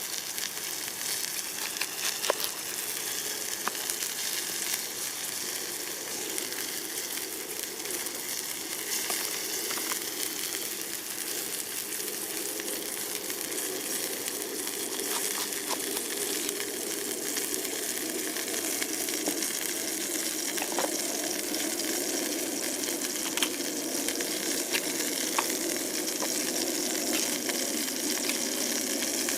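Steak sizzling steadily in a pan over a campfire, with occasional small pops and crackles.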